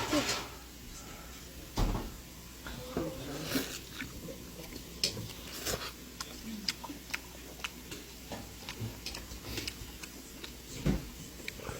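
Scattered light clicks and knocks of bowls and eating utensils, with a heavier knock about two seconds in and another near the end.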